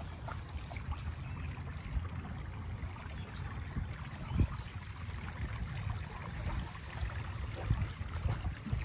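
Shallow creek running under a footbridge, with a steady low rumble and a few soft knocks, one about halfway through and more near the end.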